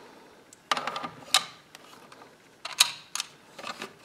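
Springfield 1903A3 rifle bolt being handled and slid back into the receiver: metal-on-metal clicks and short scrapes in two clusters, about a second in and again around three seconds in.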